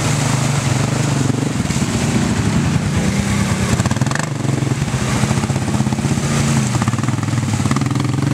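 ATV engines running under load as quads, a Can-Am among them, churn through a deep mud-and-water trail. The engine pitch wavers a little as the riders work the throttle.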